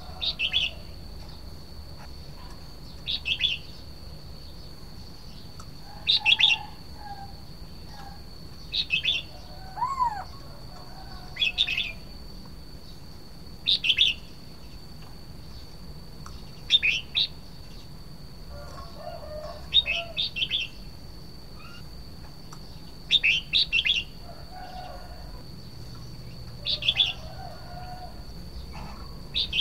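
Red-whiskered bulbul singing short, bright phrases, one about every two and a half to three seconds, eleven in all. A steady high-pitched tone runs underneath.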